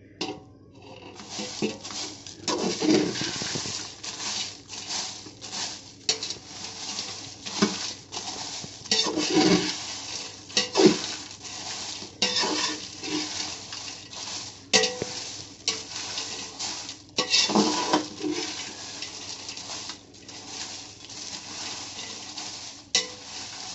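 Dried red chillies being stirred and roasted in a large stainless steel pot with a spatula: irregular scraping and rustling strokes as the spatula drags the dry chillies against the steel, with an occasional metallic clink.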